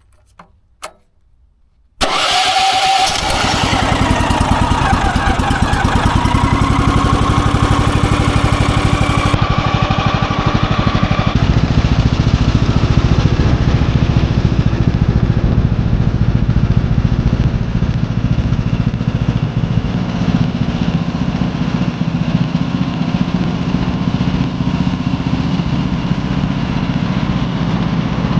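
Gasoline engine of a Woodland Mills HM130 Max bandsaw sawmill, cutting in suddenly about two seconds in and then running steadily and loudly.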